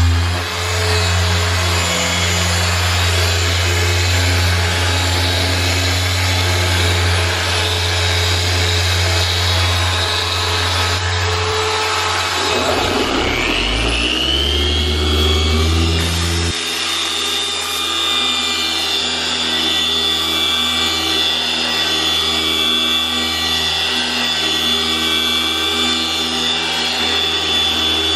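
Electric paint polisher running steadily while machine-polishing a car hood. About halfway through, its motor pitch dips and then winds back up to a steady note.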